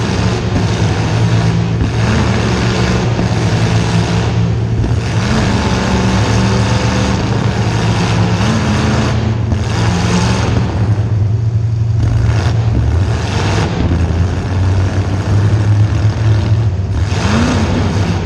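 A demolition derby car's small-block Chevy V8 running steadily and loudly, blipped up in brief revs about four times.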